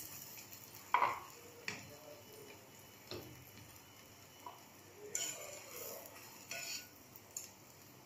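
Metal tongs tapping and scraping against a black frying pan while a paratha is handled. The sound is a handful of light, irregular clinks, the sharpest about a second in.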